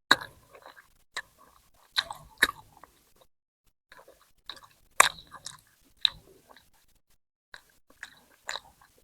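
Close-miked chewing and biting of food, with sharp crunchy clicks coming in separate bursts about once a second, with short quiet gaps between them.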